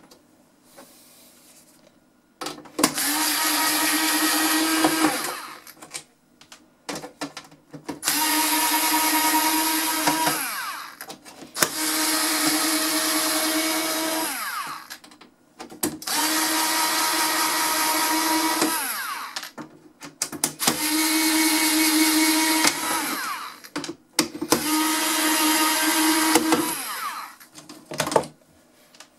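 Electric screwdriver undoing screws, run six times for two to three seconds each, its motor whine dropping in pitch as it winds down at the end of each run.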